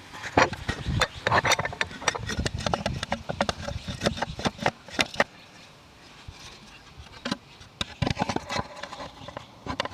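Wood being worked with hand tools: irregular wooden clicks and knocks with some scraping, busiest in the first half and thinning out about six seconds in.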